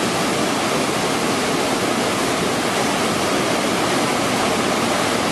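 Steady, even rushing noise of running water, like a waterfall or rapids, with no distinct events in it; it stops suddenly at the end.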